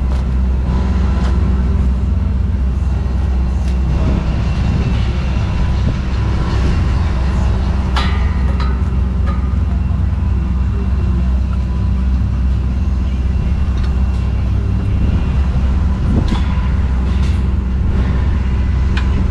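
An engine running steadily with a low, even drone, and a few sharp metallic clicks or knocks over it, the clearest about eight seconds in.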